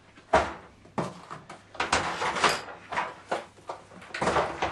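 Washing machine drum-and-tub assembly being lowered into the machine's body: a string of knocks, clunks and short scrapes as it bumps against the cabinet, the loudest about a third of a second in and another near the end.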